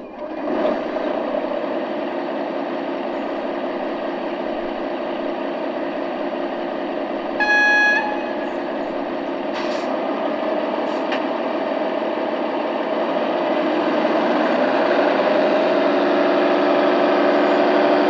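Sound module of a G-scale model DB class 260 diesel shunting locomotive: the diesel engine sound idling, one short horn blast about halfway through, then the engine revving up as the locomotive pulls away near the end.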